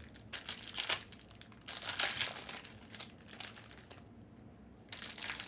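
Foil trading-card pack wrappers crinkling and tearing as card packs are opened by hand, in uneven bursts with a short lull about four seconds in.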